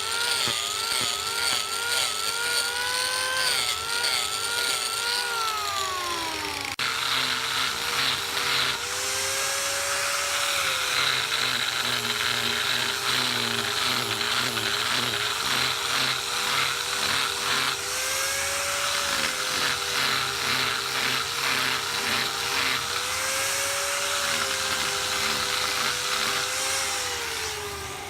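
CNC wood lathe running, its motor whine rising and falling in pitch over and over. After an abrupt change about seven seconds in, a fast rhythmic chatter of the tool cutting the spinning wood joins the whine.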